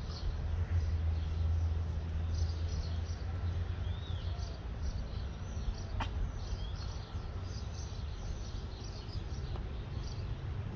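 Outdoor ambience: a steady low hum with faint bird chirps, and a single sharp click about six seconds in.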